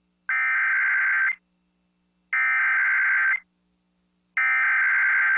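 Emergency Alert System SAME header: three bursts of warbling digital data tones, each about a second long with about a second between them. It is the coded header that opens an EAS weather alert, here a tornado warning.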